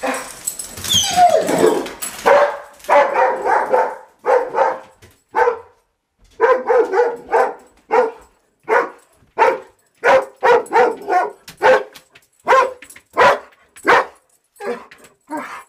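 Dog barking over and over, about two short barks a second, after a drawn-out whine that falls in pitch near the start.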